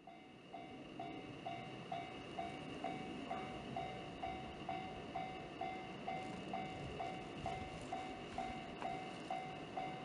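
Japanese railway level-crossing warning bell ringing evenly, about two strikes a second, signalling an approaching train, with the train's faint rumble underneath.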